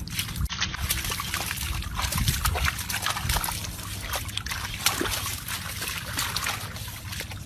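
Water splashing and sloshing, with many irregular small splashes.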